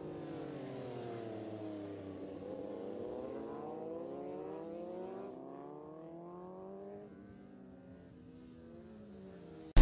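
Several racing motorcycles passing on a track, their engines revving, with overlapping engine notes rising and falling in pitch. The sound fades about seven seconds in as the bikes move away.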